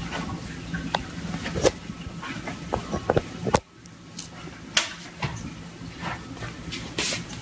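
Cardboard box crackling and knocking as a cat moves its head around inside it: scattered short, sharp clicks and crinkles, with a brief sudden dip in sound about halfway through.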